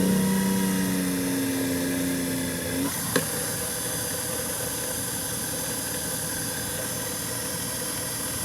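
Mini drill press motor running steadily, spinning a roll crimper down onto a shotgun shell hull to roll-crimp it. A higher tone sounds over the first three seconds and fades out, and there is one sharp click a little after.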